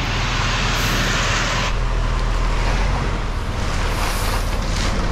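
Ready-mix concrete truck running steadily with its drum turning, and wet concrete sliding down the chute in a steady rush that eases a little under two seconds in.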